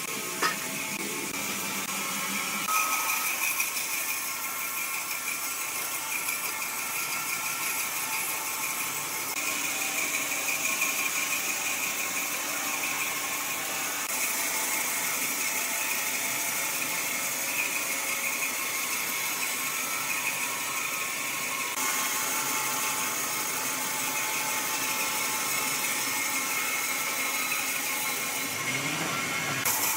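Woodworking machinery running steadily with a high whine, the sound changing abruptly several times.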